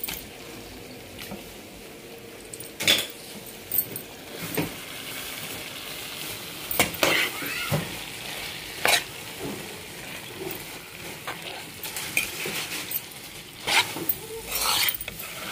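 Raw chicken pieces sizzling in a dark non-stick pan of fried onion, tomato and green chilli while a spatula stirs them, scraping and knocking against the pan every second or two. The sizzle grows stronger about halfway through.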